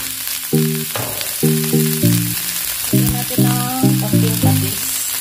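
Clams sizzling in a hot frying pan as they are stirred with a plastic spatula. Background music of short repeating low notes plays over the sizzle and is the louder of the two.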